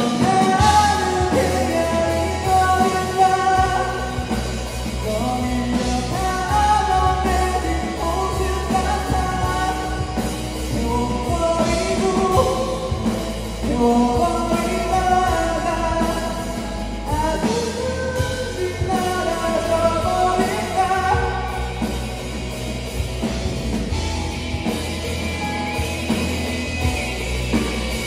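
Live rock band playing, with electric guitars, bass guitar, drum kit and keyboard, while the lead vocalist sings the melody.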